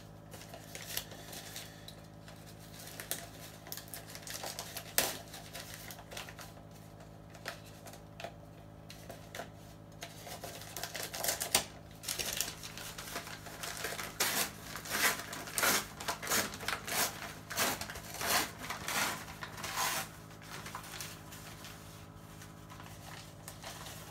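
Packaging being unwrapped by hand: quick crackling and rustling in clusters, busiest in the middle and second half, over a steady low hum.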